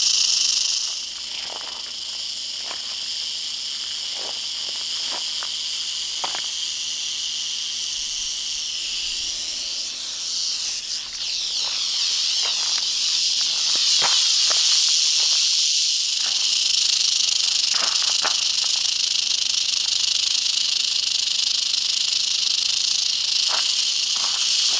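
Western diamondback rattlesnake rattling its tail in a steady, unbroken buzz, its defensive warning, as it is cornered and lifted with a snake pole. A few light footsteps and rustles in dry grass come through underneath.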